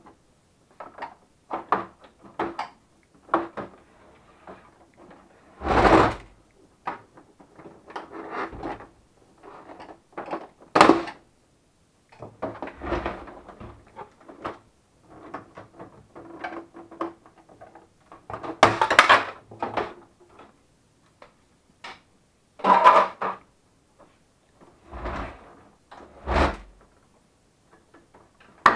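Plastic casing of a Melitta Barista TS Smart coffee machine being unscrewed and pulled apart by hand: irregular clicks, scrapes and knocks of plastic panels and a screwdriver, with several louder knocks along the way.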